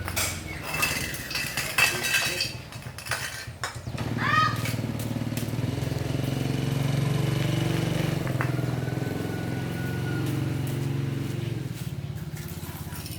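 An engine running steadily, starting about four seconds in and easing off near the end, after a few seconds of clattering and clicks.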